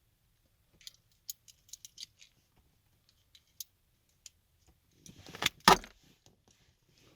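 Hand tools working on wiring, wire cutters among them: scattered light metallic clicks, then a short burst of clinking about five seconds in with one loud, sharp snap.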